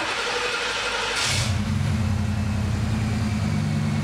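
A 1982–92 Camaro/Firebird engine starting: the starter cranks with a steady whine for about a second, the engine catches with a brief rev, then settles into a steady idle. It is running on the newly fitted lightweight lithium battery.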